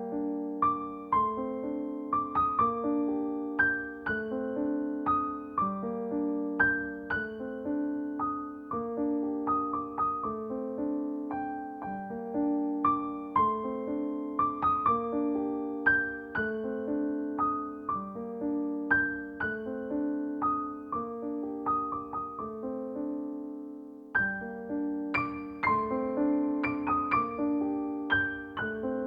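Background music: solo piano playing a gentle, repeating pattern of ringing notes.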